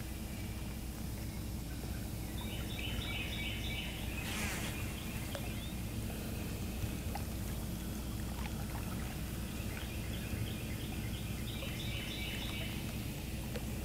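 Outdoor river ambience: a steady low hum under groups of quick, repeated bird chirps, with one short splashing rush about four and a half seconds in.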